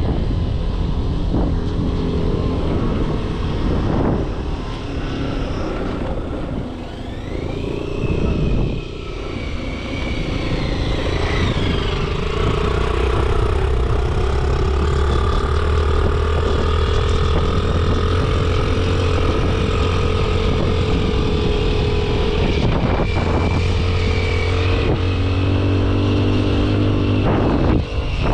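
Motorcycle engine running while riding, its pitch rising and falling with the throttle for a few seconds, then holding steady, over a heavy low rumble.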